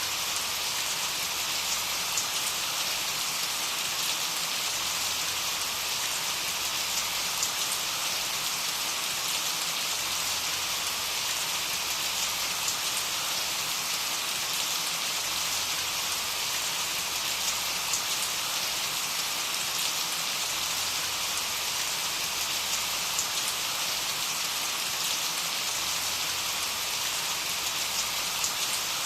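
Steady rain falling, a dense even hiss of drops on a surface with scattered individual drop ticks.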